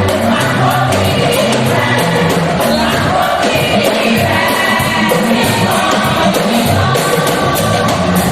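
Choir singing a gospel praise song with a band, a bass line and drums keeping a steady beat.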